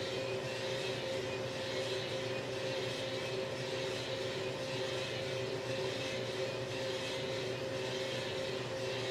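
Drum coffee roaster running mid-roast: a steady motor and fan hum over the rush of the drum, with a soft swell every second or two as the beans tumble. The beans are at the end of the drying stage and just starting to take heat, with no cracking yet.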